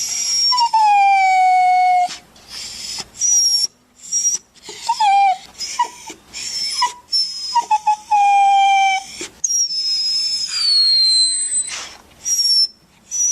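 Dog crying in sadness: a string of drawn-out whines and whimpers, several sliding down in pitch, broken by short yelping cries. Later comes a long, very high whine.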